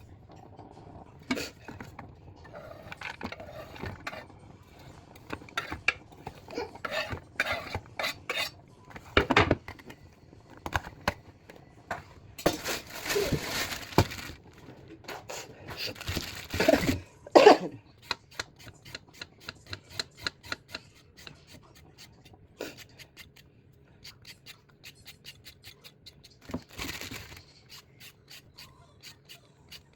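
Kitchen clatter of dishes and utensils being handled, with knocks and clinks and a couple of longer scraping or rushing noises near the middle. Quick light taps follow, a few a second, through the second half.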